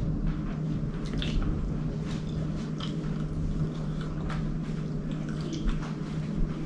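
A person eating with her fingers: wet chewing and lip-smacking, with scattered squelchy clicks, over a steady low hum. The eating is deliberately sloppy and noisy, put on to eat 'like an animal'.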